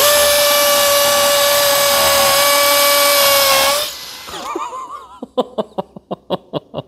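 Makita 40V XGT cordless hammer driver-drill in hammer mode boring a 6 mm hole into concrete with a masonry bit: a loud, steady, high-pitched buzz for about four seconds that stops abruptly. After it, a man's short breathy laughs.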